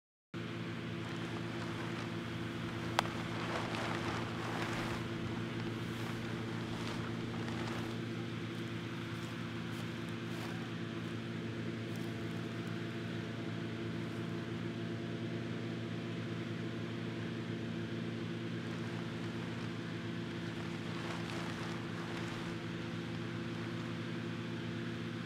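Hot air balloon inflator fan running steadily during cold inflation, a constant engine hum with several steady tones as it blows air into the envelope. Bursts of rushing noise a few seconds in and again near the end, and a single sharp click about three seconds in.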